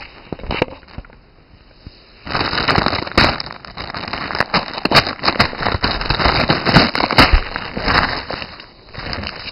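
Plastic bag wrapping crinkling and crackling as it is pulled open, with many sharp crackles. It starts about two seconds in and dies down near the end.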